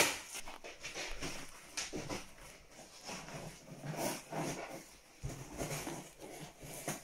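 A cardboard flat-pack box being slit open along its taped seam with a knife and handled: irregular scraping, rustling and light knocks of cardboard, loudest right at the start.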